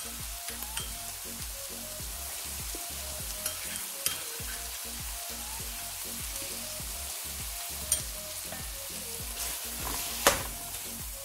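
Sliced vegetables frying in butter in a pan on low flame, with a steady sizzle. About ten seconds in, a metal spatula knocks and scrapes against the pan as it starts stirring in a spoonful of red paste.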